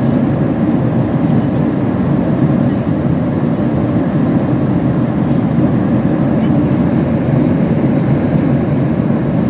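Steady engine and rushing air noise of a plane, heard from inside the cabin, holding a constant level with a deep, low rumble.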